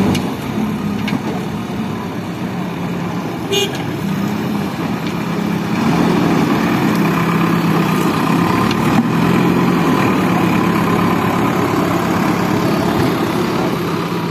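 JCB backhoe loader's diesel engine running steadily, working harder and louder from about six seconds in. A brief high toot sounds once, about three and a half seconds in.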